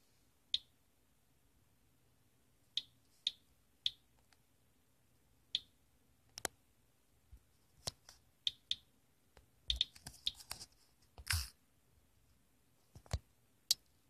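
RadAlert Inspector Geiger counter clicking at irregular, random intervals, each click one detected radiation count, as it measures a dust-laden Eden Pure space-heater filter that reads well above background. There is a brief, louder noise about eleven seconds in.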